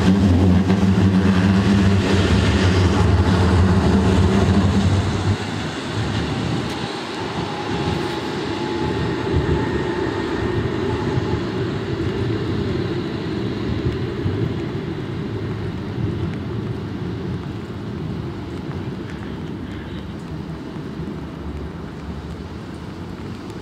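Low-floor electric tram passing close by with a loud, steady low hum, which drops away about five seconds in. Then comes a fainter rolling rush, with a brief faint whine partway through, that slowly fades as the tram moves off along the wet track.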